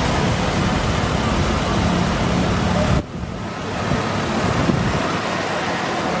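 Wind buffeting the microphone over steady outdoor noise, with a low motor hum in the first half. About halfway through the sound cuts abruptly to quieter wind noise.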